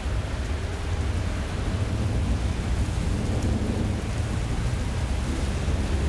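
Thunderstorm: a low, continuous rumble of thunder under a steady hiss.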